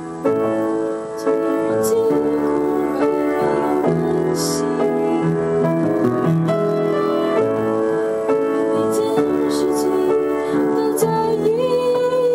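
Piano playing a slow piece of held chords that change about once a second.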